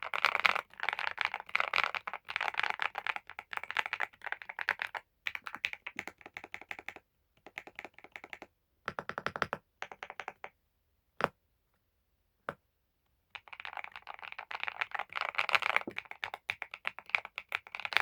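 Typing on a Kiiboom Phantom 98 Lite mechanical keyboard: quick runs of clacky keystrokes, thinning out midway to a couple of lone key presses, then fast typing again.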